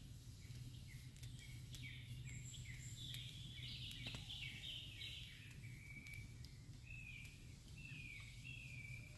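Faint birdsong in quiet countryside: many short chirps and falling whistled notes from several birds, over a steady low hum.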